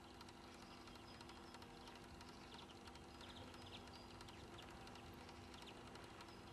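Near silence: faint outdoor ambience with a steady low hum and scattered faint bird chirps.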